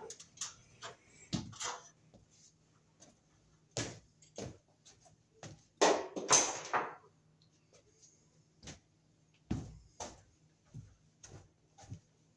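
Scattered knocks, clicks and footsteps as a person climbs down a stepladder and moves about, with a louder rustling scrape about six seconds in and a few dull thuds near the end.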